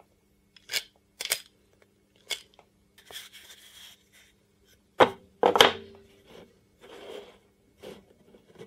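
MDF corner blocks fitted with screw eyes being handled and clacked together. There are a few sharp clicks, then two loud knocks about five seconds in as the blocks are set down on a wooden table, followed by lighter sliding and tapping.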